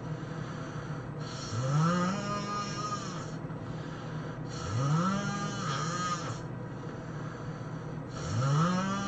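A person snoring heavily, three snores about three to four seconds apart. Each snore is a buzzing drone that climbs in pitch and then holds, with a hissing rush of breath over it.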